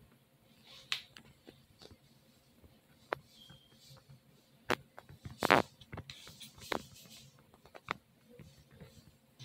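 Scattered light taps, clicks and brief rustles of a hand-held sketchbook being handled, with the loudest knock a little past halfway.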